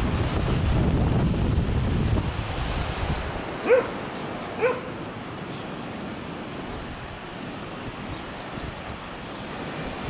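Wind buffeting the microphone over the rush of surf, dropping away about three seconds in. A dog then barks twice, about a second apart, the loudest sounds here, followed by faint high chirping.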